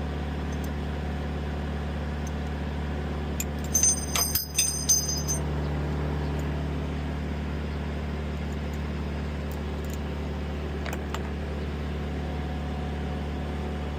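Steady low mechanical hum throughout. About four seconds in comes a brief cluster of metallic clinks with a high ringing, as a metal tool or part is handled during work with a 10 mm wrench on a truck's A/C compressor mounting.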